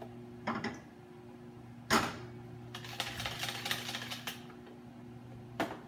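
Wire whisk clicking and scraping against the side of a bowl as pancake batter is beaten, in quick irregular runs of taps, with one louder knock about two seconds in. A steady fan hum runs underneath.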